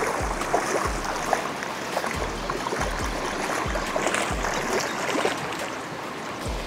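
Steady splashing and churning of water, with scattered small splashes and low thumps of wind on the microphone.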